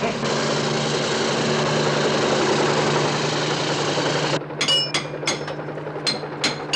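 A steady machine drone with a low hum for about four seconds. Then a hammer strikes a steel chisel against a masonry wall: about six sharp, ringing metal clangs, roughly a third of a second apart.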